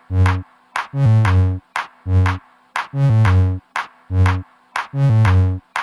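Electronic music with a slow drum-machine beat: deep bass hits about once a second, with sharp clicks between them.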